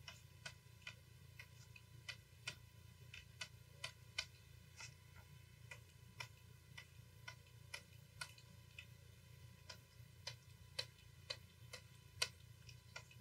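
Faint, light clicks, about two a second at slightly uneven spacing, from a computer pointing device as short brush dabs are made, over a low steady hum.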